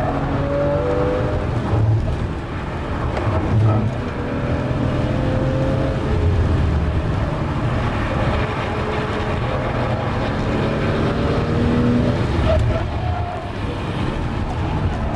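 Porsche 997 Carrera S's 3.8-litre flat-six heard from inside the cabin at full speed on track. The revs climb and fall back several times as the car accelerates, shifts and brakes, over steady road and tyre noise.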